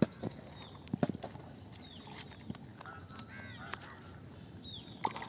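Birds calling: short, high notes that slide downward, repeated every second or so, with a few sharp knocks, the loudest right at the start and about a second in.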